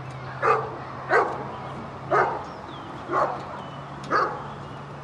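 Briard barking steadily at a decoy who stands still: five deep, evenly spaced barks about a second apart. These are the guard barks a ring dog gives instead of biting while the decoy stays motionless.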